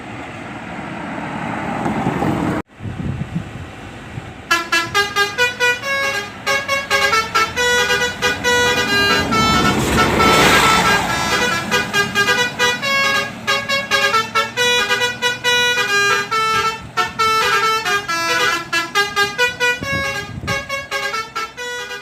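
A bus's multi-tone musical horn of the telolet type plays a fast tune of stepped notes over the road noise of the passing bus. The tune starts a few seconds in, after a stretch of plain road noise.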